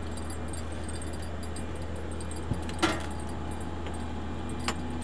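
Steady low hum with a few small handling noises from the boat and fishing tackle while a fish is fought on a bent rod: a dull knock about halfway through, then a sharp metallic click with a short ring, and another click near the end.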